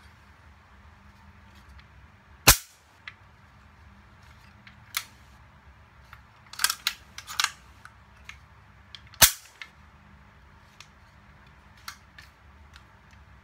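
Hard plastic and metal clicks and snaps from an E&C EC832S MK18 BB rifle as its parts are handled and worked. There are two loud snaps, about two and a half seconds in and about nine seconds in, with a run of smaller clicks in between.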